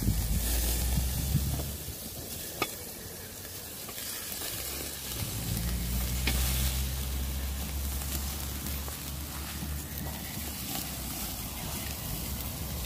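Meat sizzling on a kettle grill's wire grate: a steady hiss, with a low rumble underneath and one sharp click a little before three seconds in.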